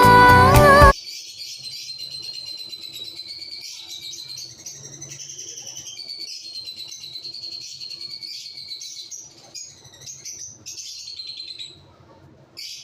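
Small birds chirping and twittering in a dense, continuous chorus of high, wavering calls, after music cuts off suddenly about a second in.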